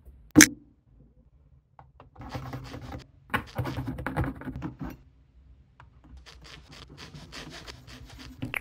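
A table knife saws back and forth through a slice held with a fork, making repeated scraping and rasping strokes in three spells. It is opened by one sharp click about half a second in, the loudest sound here.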